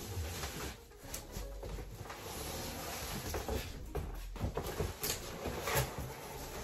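Large cardboard moving box being lifted and folded: cardboard rustling and scraping, with a few sharp knocks and clicks.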